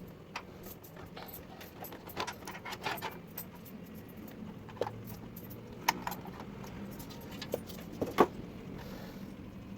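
Scattered clicks and light metallic rattles from computer parts being handled, over a low steady hum. The loudest click comes near the end.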